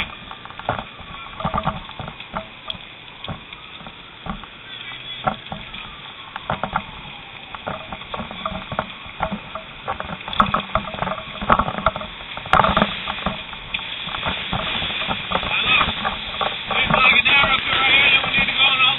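Handling noise from a body-worn camera: rustling and many irregular knocks and clicks as the wearer moves in his gear, with voices coming in near the end.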